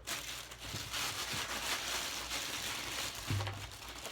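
Rustling and light knocks of someone handling and rummaging through things close to the microphone.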